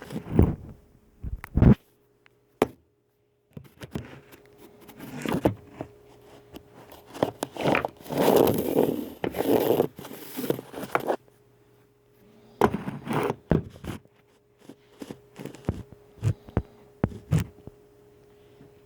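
Homemade slime squished, poked and stretched by hand close to the microphone for ASMR: irregular clicks and squelching sounds, with a longer, denser stretch of squishing a little past the middle.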